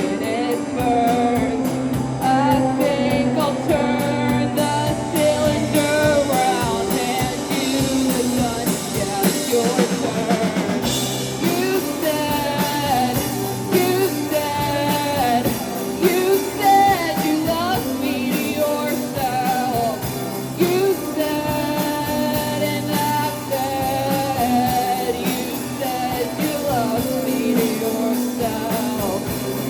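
Live rock band playing a song: a sung vocal over guitar and drum kit.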